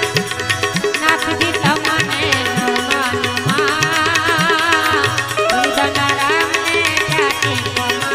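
Instrumental interlude of devotional bhajan music: a hand drum keeps a steady rhythm, with bass strokes that slide up in pitch, under a wavering melody on a lead instrument.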